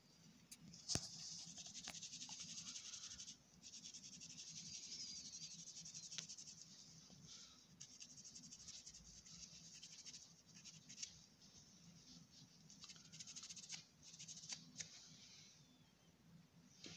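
Faint rubbing in stretches of a few seconds, with a few light clicks: a brake caliper guide bolt being cleaned by hand.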